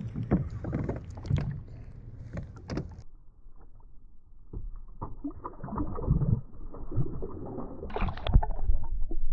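Water sloshing and gurgling against a kayak hull, picked up by a camera at the waterline. For several seconds the sound is muffled and dull while the camera sits under the surface. About eight seconds in there is a sharp, loud splash as a hand and a small snapper are put back into the water to release the fish.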